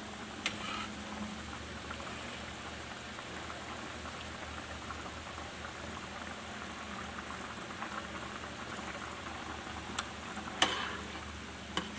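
Squash-and-sardine stew bubbling at a steady boil in a metal pan, with a few sharp spoon clicks against the pan near the end.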